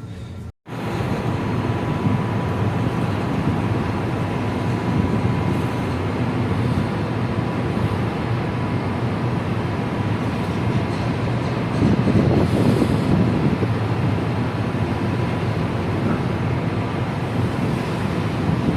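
Wind and sea noise aboard a ship in rough weather: a steady low rush with a faint steady hum through it, cut by a brief dropout at the very start and swelling louder about twelve seconds in and again near the end.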